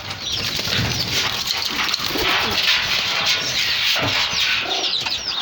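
Farm birds chirping and calling together: a dense, continuous chatter of short high chirps, with some lower calls mixed in.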